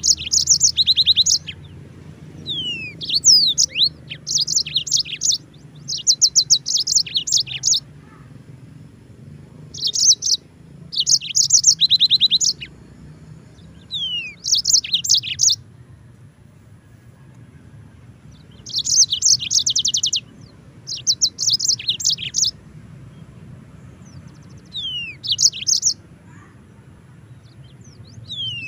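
Yellow-fronted canary singing: short phrases of fast, high trills, many opened by a falling whistle, repeated every couple of seconds with brief pauses and one longer pause about two-thirds through.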